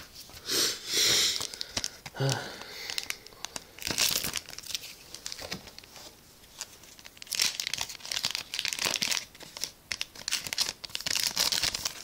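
Foil booster-pack wrapper of a trading-card pack crinkling and tearing as it is opened by hand, in irregular rustling bursts.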